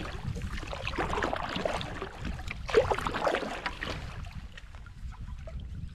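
Canoe paddle strokes splashing in the lake water, the two strongest about two seconds apart, then quieter. Wind rumbles on the microphone underneath.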